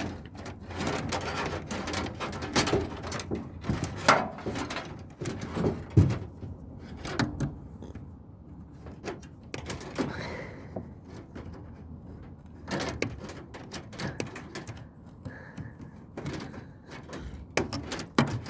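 Irregular clattering, clicks and knocks of a tumble dryer's metal and plastic parts being handled and taken apart. The two loudest thumps come about four and six seconds in.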